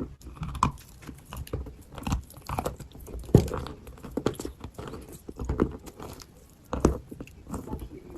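Close-up crunching and chewing of dry, powdery Turkestan white edible clay, in irregular bites, with the sharpest crunches about three and a half and seven seconds in.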